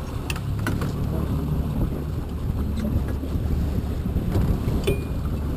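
A boat motor running steadily at trolling speed under wind noise on the microphone, with a few light clicks.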